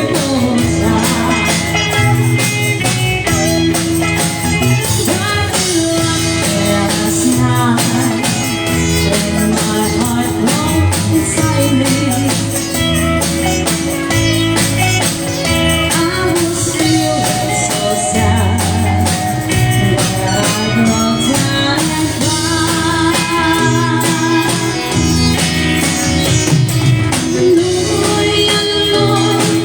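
Live band playing a song, with guitar among the instruments.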